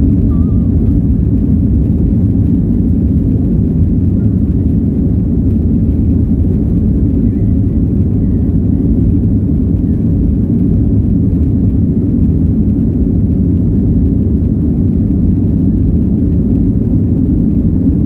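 Steady low rumble inside a Boeing 737's cabin, with the jet engines at idle thrust as the airliner taxis, before the take-off roll.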